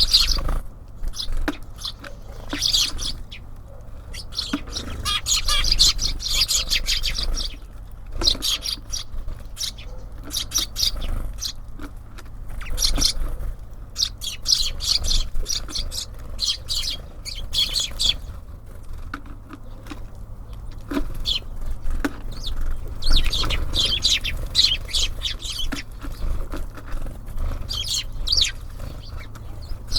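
Small songbirds chirping in repeated bouts of rapid, high-pitched calls, with short lulls between bouts, over a steady low rumble.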